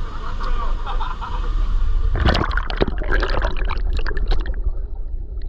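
Creek water rushing and splashing under a steady low rumble, with a burst of louder, irregular splashing from about two seconds in that lasts about two seconds.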